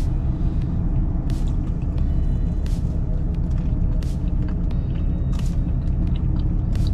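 Steady low rumble of an idling pickup truck engine heard from inside the cab, with short mouth clicks from chewing about every second and a bit.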